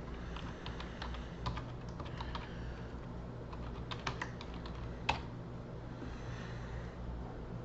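Typing on a computer keyboard: an irregular run of key clicks, the loudest about five seconds in, over a steady low hum.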